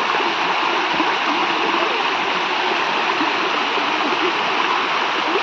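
Steady rush of a mountain stream's flowing water, with faint voices underneath.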